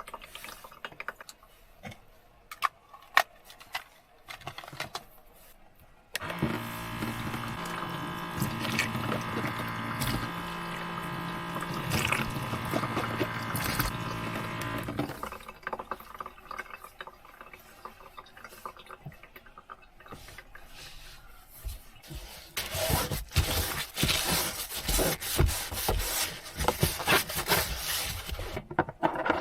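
A small electric motor buzzes steadily for about nine seconds, starting and stopping abruptly. Scattered light taps and drips come before it, and a stretch of dense tapping and clatter comes near the end.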